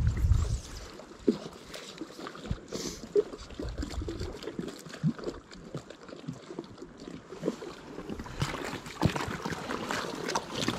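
Lake water lapping and splashing at the shoreline, with gusts of wind buffeting the microphone about the start and again a few seconds in.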